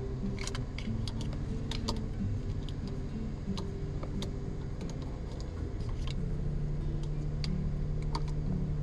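Hard plastic clicks and light rattles as fishing rods are pressed into clip-type rod holders on a ceiling bar, scattered irregularly, over background music with held low notes.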